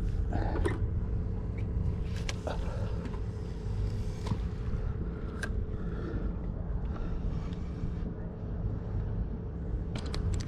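A motor running steadily, a low even hum with a few light clicks over it.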